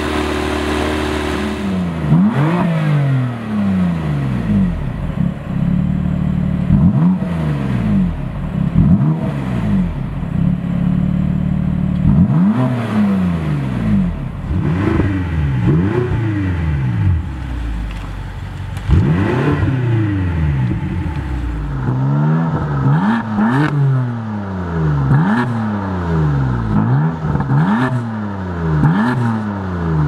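Stationary performance-car engines free-revving. After a brief steady idle, a long series of rev blips follows, each rising and falling in pitch; in the middle this is a BMW X5 M's twin-turbo V8 revved in Park. Near the end the blips come faster, with sharp pops between them.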